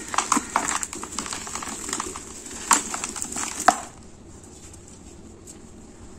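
Dry sand-cement lumps crushed and crumbled between gloved hands, giving dense crunching and crackling with several sharp cracks. After about four seconds it turns much softer as the hands move through the loose powder.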